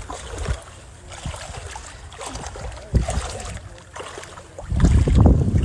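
Wind buffeting the phone's microphone, with scattered knocks and rustles of handling; a sharper knock about halfway through, and the wind rumble gets much louder near the end.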